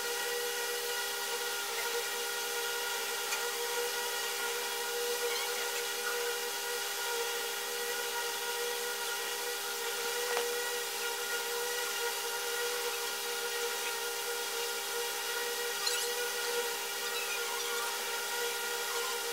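A steady droning hum holding several fixed pitches, with a faint tick about ten seconds in and another near sixteen seconds.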